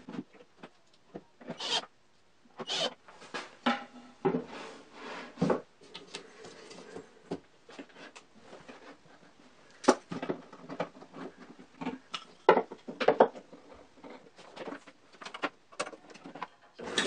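Handling noises of a small electric motor being set onto a wooden base and a V-belt fitted over a plywood pulley: scattered knocks, clunks and rubs of metal and wood. Near the end the motor switches on and runs steadily.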